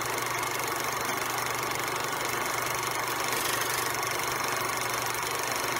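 Vintage film projector running: a steady mechanical whirr with a fast, even clatter over a low hum.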